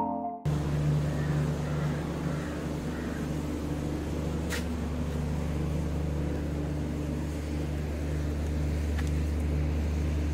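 Steady low mechanical hum, like a running engine, over a background hiss, with one sharp click about four and a half seconds in.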